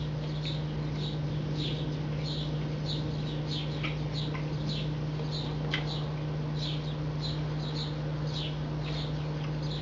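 Short, high, falling chirps from a small animal, repeated quickly, two to four a second, over a steady low electrical hum.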